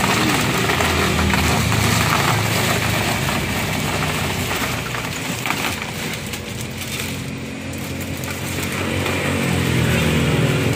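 Crystal ice cubes rattling and rustling as they are poured from a plastic bag into a plastic bucket, over the steady hum of an engine that grows louder near the end.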